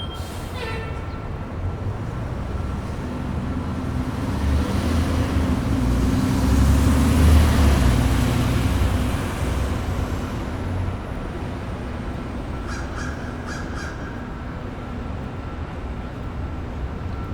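Downtown city street traffic: a steady low rumble of engines and tyres, with one vehicle passing close and loud in the middle, swelling up and fading away again.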